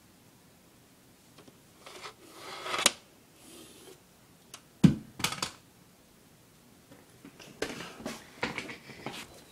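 Handling noises from a plastic smoke detector being worked by hand: a rustle that ends in a sharp click, a single thump about five seconds in, then a run of small clicks and rustles near the end.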